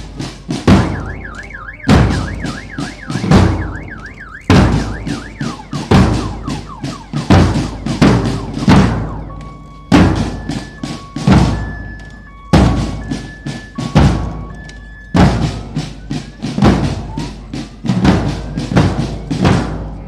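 A marching band's drumline plays: bass drums strike a steady beat about once every 1.3 seconds, with snare drums filling between. High warbling tones come early on, and about halfway through a high two-note figure alternates over several seconds.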